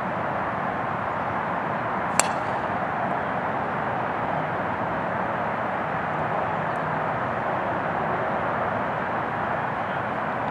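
A driver strikes a golf ball off the tee about two seconds in: one sharp click, over a steady rushing background noise.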